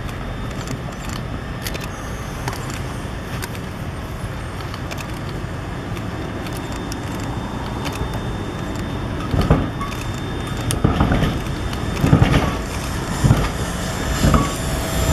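SEPTA Kawasaki light rail vehicle approaching on street track, its running noise growing louder over steady road traffic, with a series of heavy thumps about a second apart in the second half as it nears.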